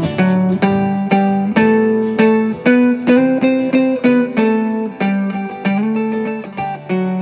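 A hollow-body archtop electric guitar and an acoustic guitar playing an instrumental passage: a melody of single picked notes that ring out, about two a second, over the chords.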